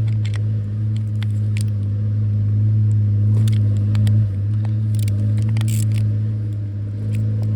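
An engine idling steadily with a low, even hum, with scattered light clicks and taps of hand tools on metal parts as the bolts are worked.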